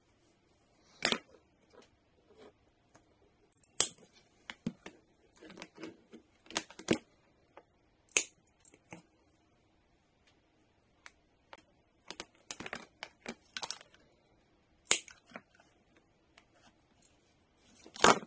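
Side cutters snipping through a power supply's thin DC lead, with handling noise from the cable and a scatter of sharp clicks and snaps. There is a louder clack near the end as the cutters are put down on the bench.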